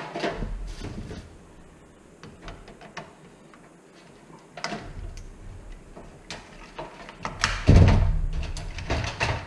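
Plastic clip and cord being worked into a steel fluorescent light fixture: scattered light clicks and rattles, then louder knocking and bumping of the sheet-metal housing on the bench during the last two seconds.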